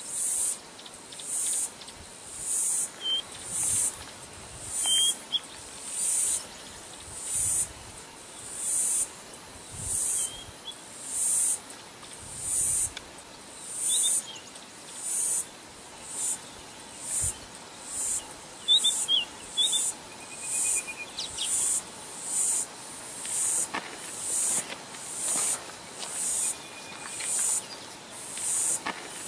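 An insect calling in short, high-pitched pulses about once a second, with a few brief bird chirps in between.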